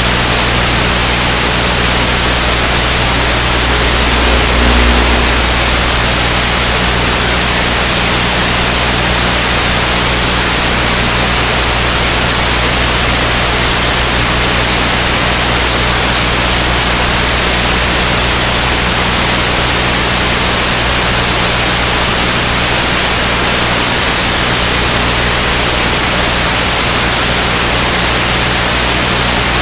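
Steady, loud static-like hiss with a faint low hum underneath, the kind recorded on an analog FPV video link's audio, with no distinct jet-fan whine standing out. A brief low rumbling swell about five seconds in.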